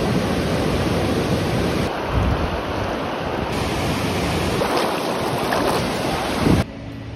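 Steady rush of river rapids, with wind on the microphone. It cuts off suddenly near the end, leaving a quieter hiss.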